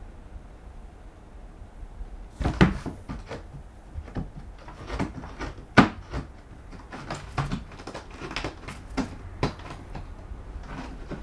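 Irregular knocks and thumps as a cat clambers about a cat scratching lodge, starting about two seconds in, with the two loudest bumps near the start and near the middle.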